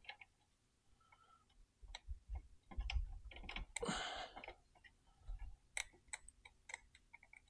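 Scattered light clicks and knocks of metal parts being handled as an e-bike's rear hub-motor wheel is lifted and its axle worked into the frame, with a few dull thumps and a short scrape about four seconds in.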